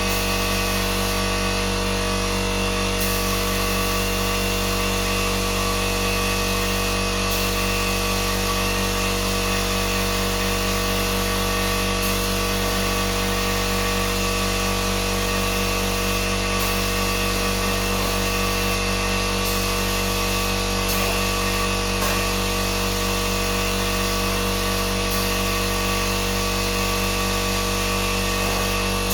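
An electric power tool's motor running steadily: a constant hum with several fixed tones that holds at one speed without stopping.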